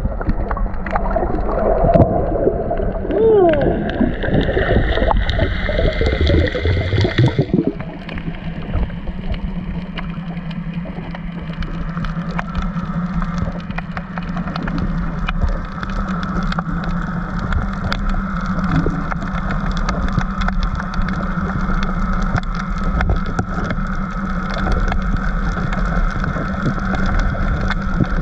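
Underwater sound: bubbling and gurgling water for the first several seconds as the diver goes down. This stops suddenly and gives way to a steady drone from a boat's engine carried through the water, with constant fine crackling.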